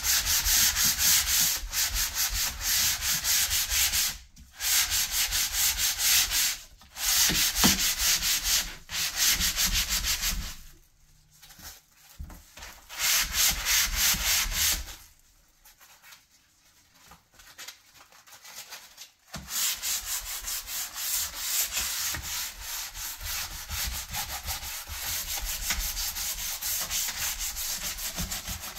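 Sandpaper rubbed by hand over the painted wooden frame of a cabinet door in quick back-and-forth strokes: the final sanding of the paint. The strokes stop briefly several times, with a longer break of a few seconds past the middle.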